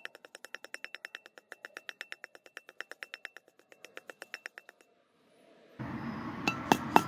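Fast, even ticking of about eight beats a second that sounds like a music bed; it stops about five seconds in. After a short gap, a few light, ringing taps near the end: metal being tapped to seat the back bearing ring into the wheel hub.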